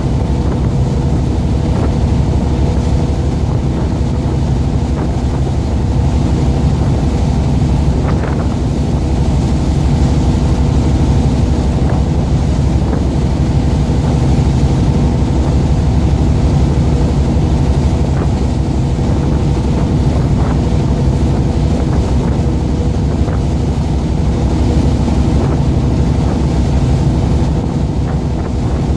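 Boat engine running at a steady speed, a constant low drone with wind buffeting the microphone.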